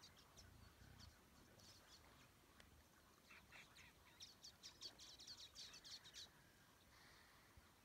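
Faint bird calls: scattered short, high chirps, then a quick chattering run of notes about four seconds in that lasts roughly two seconds.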